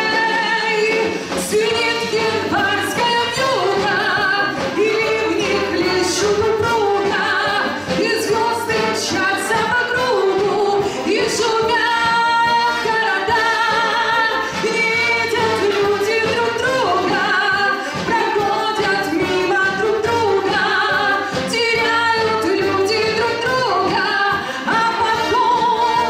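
A woman sings a song with a military brass band accompanying her: brass, tuba and electric guitar playing under the voice.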